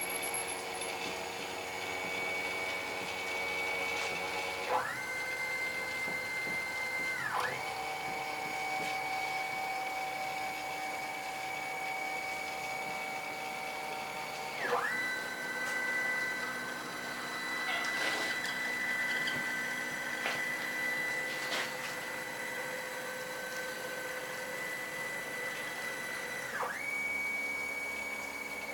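Stepper motors of a 170 × 120 cm CNC router whining at steady pitches that switch abruptly to new pitches every few seconds as the machine's moves change speed.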